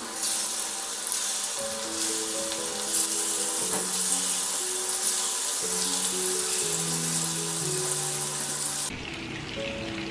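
Seer-fish steaks sizzling in hot oil in a frying pan as they are laid in for a shallow fry, with slow background music over it. The sizzle drops suddenly about nine seconds in.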